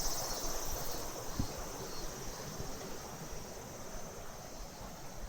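Quiet ambience with one light knock about a second and a half in.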